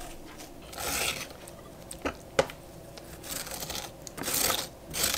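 Metal spoon scraping the seeds out of a halved cucumber on a wooden cutting board, in several short scrapes, with two sharp clicks a moment apart about two seconds in.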